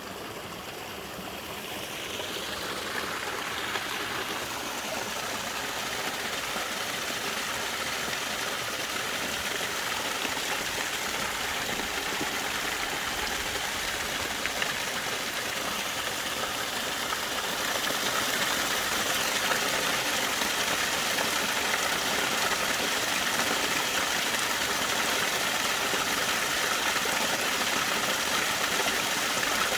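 Small creek waterfall running over ice, a steady rush of falling water that gets louder about 2 seconds in and again about 18 seconds in.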